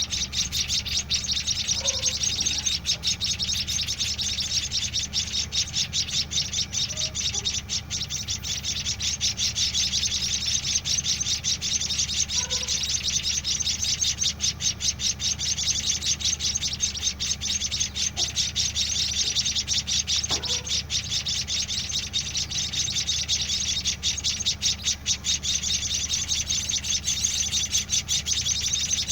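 Seven-day-old white-headed munia (emprit kaji) chicks giving a continuous stream of rapid, high begging chirps, the calls nestlings make while being hand-fed. A steady low hum runs underneath.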